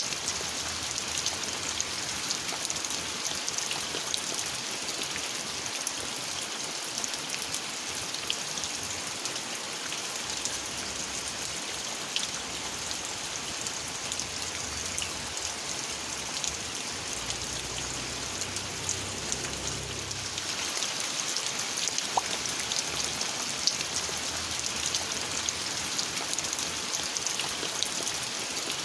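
Steady rain falling, an even hiss dotted with many separate drop hits.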